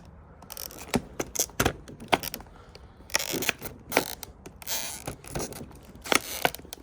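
Irregular metallic clicks and short scrapes of deadbolt lock hardware being worked into place in a door by hand.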